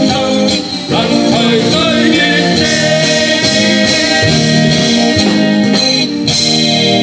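Live band playing an upbeat pop song, with guitar and a singer.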